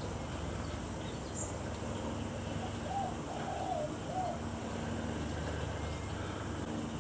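Wind rumbling on the microphone, with a bird calling in three short arched notes about three to four seconds in.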